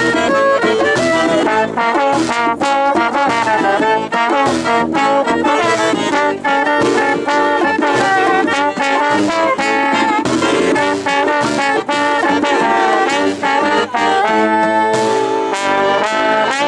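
Live small brass band playing upbeat jazzy music, a trombone leading with saxophone and drum kit. It moves into long held notes near the end.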